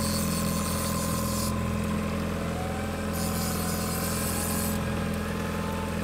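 Boat's outboard motor idling with a steady, even low hum.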